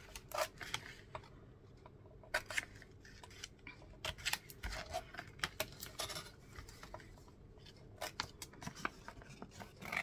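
Small scissors snipping through a folded sheet of printed paper, in short runs of crisp snips with pauses between.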